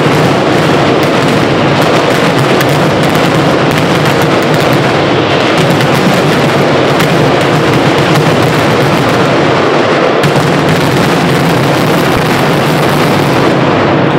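Mascletà firecrackers by Pirotecnia Crespo detonating so densely that the bangs merge into one continuous, very loud din without a gap. This is the 'terremoto' barrage that closes a mascletà.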